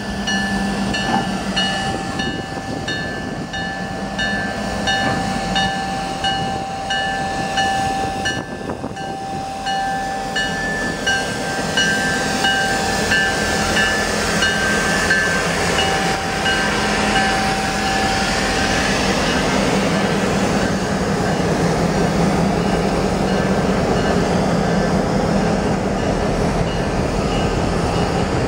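Slow freight train led by BNSF diesel locomotives rolling past: the diesel engines run with a steady ringing repeated about twice a second, which fades out about two-thirds of the way through. The rumble and clatter of the freight cars' wheels on the rails grows louder as the cars go by.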